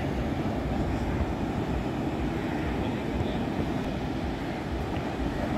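Steady low rumble of wind buffeting the microphone over the wash of surf breaking on the shore.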